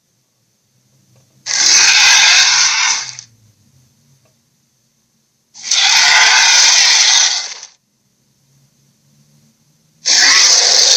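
Dragon sound effect: harsh, hissing bursts of about two seconds each, three times a few seconds apart, the third starting near the end.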